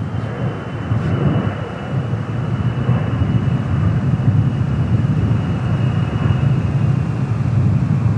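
Aircraft engines running with a steady low rumble, and a faint high whine that sinks slightly in pitch.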